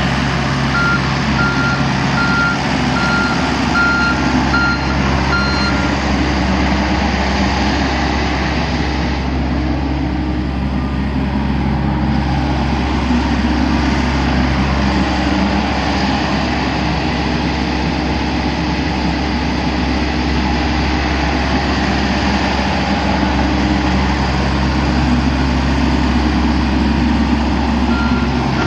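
Mini excavator's diesel engine running steadily, with its travel alarm beeping in a short series over the first few seconds and starting again at the very end.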